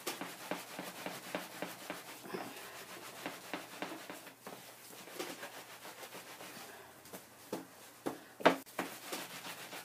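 Wet, soapy wool felt being rubbed and rolled by hand against a rubber grip mat: a soft, rhythmic scrubbing, the agitation that fulls and shrinks the felt. Two louder knocks come near the end.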